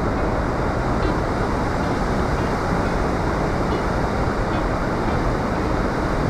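Steady, even rush of a large river waterfall, heavy white water pouring without let-up.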